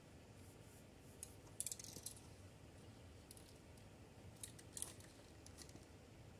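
Spray paint cans being handled: scattered light clicks and two short clusters of rattling, the louder about a second and a half in and another near five seconds, over a quiet background.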